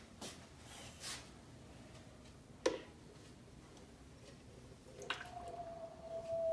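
Whipping cream poured from a plastic measuring jug into a blender jar of frozen strawberries. A single light knock comes about two and a half seconds in, then from about five seconds the pour runs as a faint trickle with a thin, nearly steady tone.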